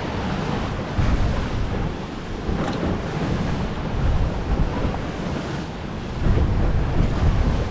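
Strong gusting wind buffeting the microphone over the wash of a rough, choppy sea around a small boat, in squally weather.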